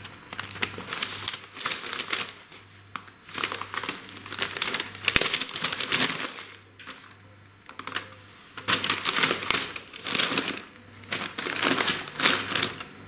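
Kraft paper bag with a plastic window, filled with dill seeds, crinkling and rustling as it is handled, set on a kitchen scale and folded. The rustling comes in repeated bursts with a short lull in the middle.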